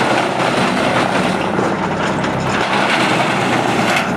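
Heavy-duty wood chipper running, a loud, dense rushing noise with a low machine hum underneath.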